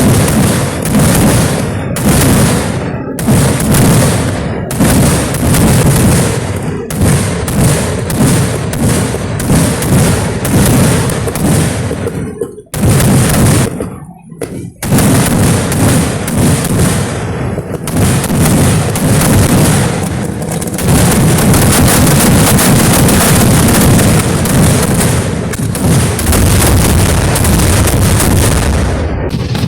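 Kerala festival fireworks (vedikettu): rapid volleys of loud booming explosions in close succession. There is a brief lull about halfway through, then a near-continuous barrage for the last third.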